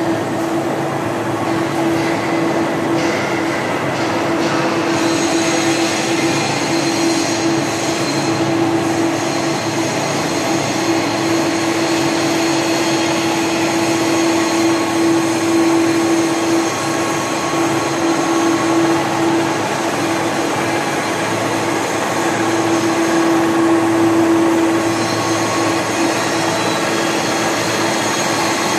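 TOS WHN 13.8 CNC horizontal boring mill running: a steady mechanical hum with one strong, even tone over a wash of machine noise.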